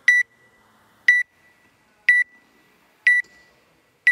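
Electronic countdown timer beeping once a second: four short, high beeps, evenly spaced, as the countdown runs down to the start of a set.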